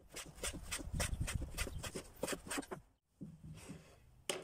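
Kitchen knife slicing raw chicken fillet into strips on a bamboo cutting board: a quick run of blade taps on the board, about four a second, stopping about three seconds in. A single sharp click near the end.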